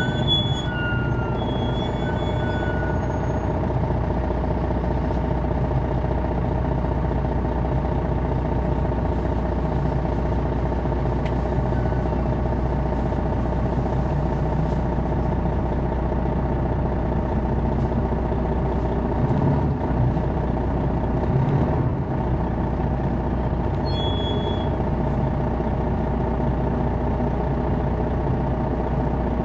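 MCI D4000 coach's Detroit Diesel Series 60 engine running steadily under way, heard aboard the bus, with a few low bumps about two-thirds of the way through.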